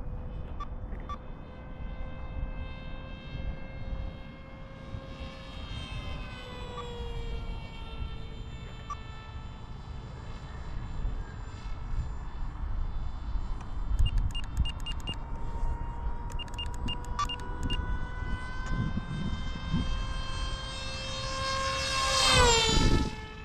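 Radio-control model airplane's motor and propeller whining in flight, the pitch sliding slowly up and down as it manoeuvres. Near the end it makes a loud close pass, the pitch rising and then dropping sharply as it goes by.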